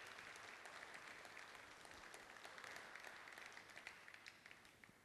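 Faint audience applause, a patter of many hand claps that thins out and dies away near the end.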